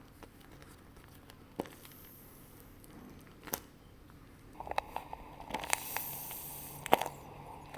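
Crinkling and crackling from handling paper or packaging: a few scattered clicks at first, then denser crinkling from a little past halfway, with one sharp snap near the end.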